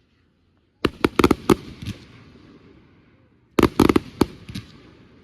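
Fireworks going off: two quick volleys of sharp bangs, one about a second in and another about two and a half seconds later, each a rapid string of reports with a rumbling tail.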